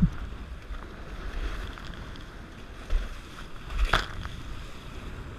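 Wind buffeting the microphone and water rushing past a Dart 18 catamaran's hulls under sail. About four seconds in, a wave slaps the boat and throws spray across it, the loudest moment, with a smaller hit just before.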